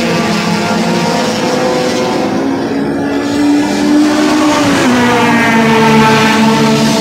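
Race car engines running hard as two touring cars pass on the circuit. The engine pitch climbs from about two seconds in, drops just before five seconds, then holds steady.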